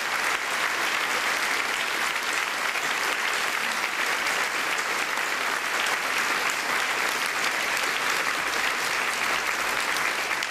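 An audience clapping in steady, sustained applause, with the dense crackle of many pairs of hands.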